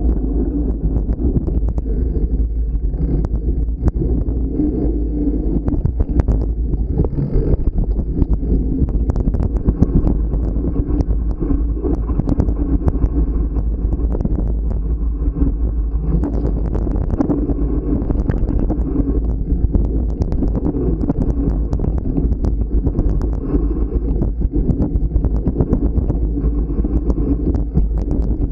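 Trek Farley 9.6 fat bike riding a dirt trail: a steady low rumble of the tyres and wind on the microphone, with frequent clicks and rattles from the bike over bumps.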